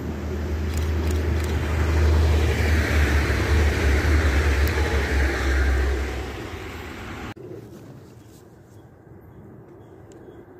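Red passenger train passing close by on the rails: a loud rumble with wheel-on-rail noise that builds about two seconds in, peaks and then fades. About seven seconds in it cuts off abruptly to a quiet outdoor background.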